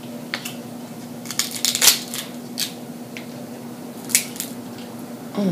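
Crab leg shells being cracked and snapped open by hand: a series of sharp cracks, with a loud cluster just before two seconds in and another about four seconds in.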